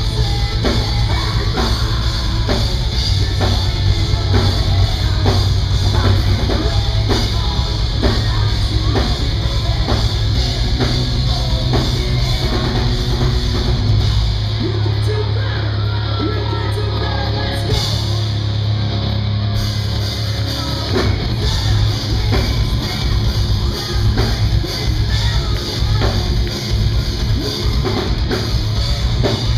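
Metalcore band playing live: drum kit, electric guitars and vocals at full volume. For several seconds about halfway through, the heavy low end drops away before the full band comes back in.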